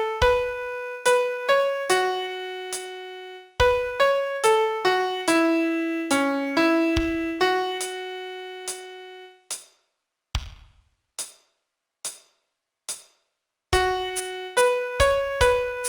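Piano playing a slow melody one note at a time, each note struck and left to fade. About two-thirds of the way through, the melody stops for a few seconds, leaving only a handful of short, evenly spaced clicks. Near the end the melody starts again.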